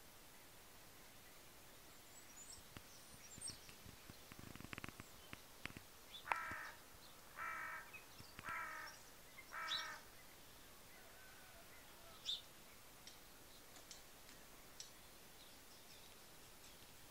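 A crow cawing four times, each caw harsh and short, about a second apart. Faint high chirps of small birds come before and after, with a brief rustle just before the caws.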